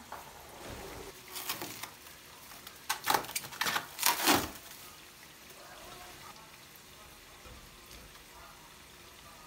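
Liquid pouring or splashing in three short noisy bursts about one and a half, three and four seconds in, then only faint room tone.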